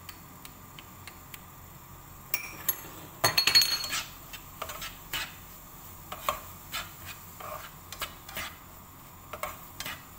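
Cooking utensil knocking and scraping against a frying pan as onion and garlic are stirred in hot oil: scattered taps, with a dense run of louder clatter around three seconds in.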